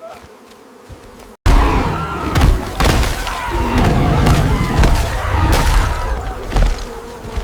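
Bee swarm buzzing loudly with heavy thuds and crashes, starting suddenly about a second and a half in after a quieter stretch.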